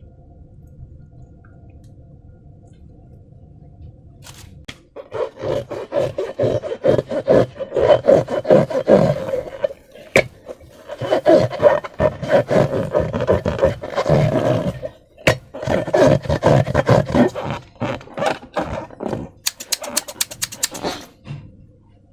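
Hands working slime and rubber balloons: rapid, irregular squishing and rubbing strokes begin about five seconds in and go on almost to the end, with a few sharp clicks near the end.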